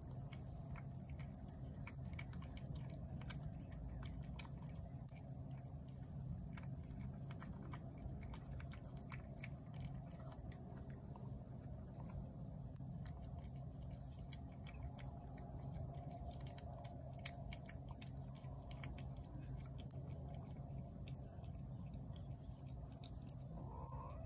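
A cat chewing wet pâté cat food off a plate: a run of small, quick, wet clicks close to the microphone, with one sharper click about two-thirds of the way through, over a steady low hum.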